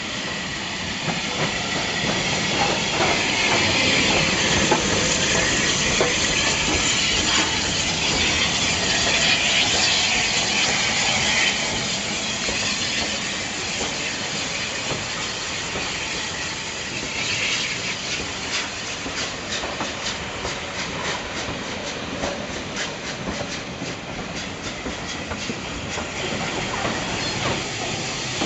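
Steam train passing along the platform: a loud steam hiss as the locomotive goes by, then the coaches' wheels clicking over the rail joints in a quick irregular run for the last ten seconds or so.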